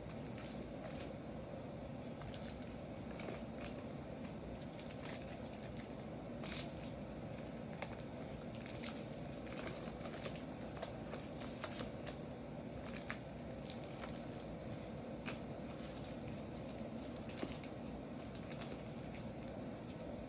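Trading cards and their plastic holders being handled, stacked and set down: many small clicks and light rustles over a steady background hiss.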